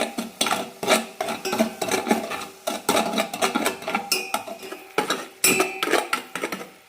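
A spoon scraping and clinking against a pan in quick, irregular strokes, stirring sugar and water as it dissolves for caramel. It stops abruptly near the end.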